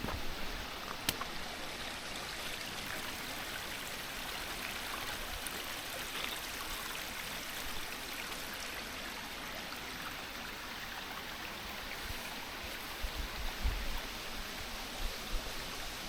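Water of a small waterfall flowing steadily, with one sharp click about a second in and a few low bumps near the end.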